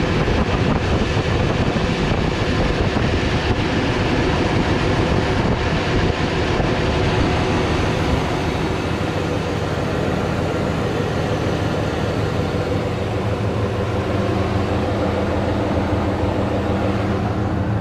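2003 Dodge Ram 1500's 5.7-litre Hemi V8 running steadily just after being started, heard up close under the hood with the engine cooling fan and serpentine belt spinning.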